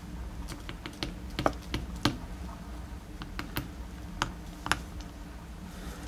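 Light, irregular clicks and taps of a DOM iX dimple lock's small metal key pins being taken out of the plug and set down on a rubber pinning mat.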